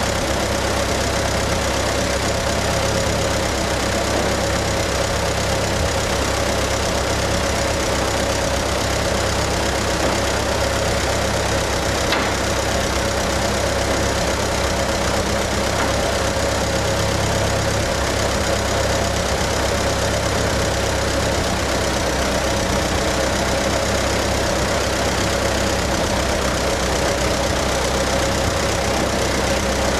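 Ferguson TE-A20 tractor's four-cylinder petrol engine running steadily, with no change in speed.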